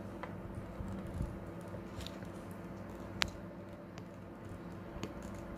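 Quiet room with a steady low hum, broken by a few small clicks and taps from little plastic toy parts being handled, the sharpest about three seconds in.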